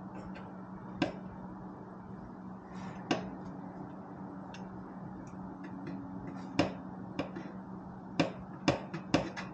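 Sharp metal clinks and knocks as a Cone Engineering shorty muffler is worked and pushed onto the Triumph Speed Twin 1200's exhaust pipe, a few spread out and then several close together near the end, over a steady low hum.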